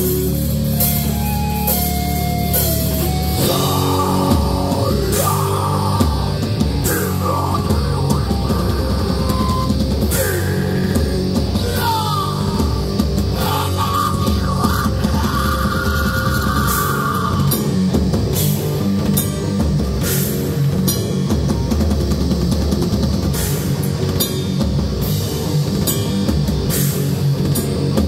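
A live heavy metal band playing distorted electric guitars, bass and a drum kit. Long held low chords open the passage, then steady drumming comes in with guitar melody lines over it.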